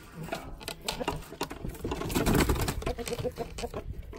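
Hens clucking as they move about, with scattered light knocks and a louder rush of noise that swells about two seconds in.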